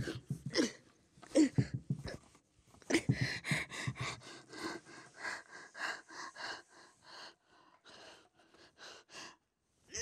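A woman's voice making strained wordless sounds: short whimpering cries that slide in pitch in the first two seconds, then a quick run of hard, breathy gasps that thin out into short, fainter breaths near the end.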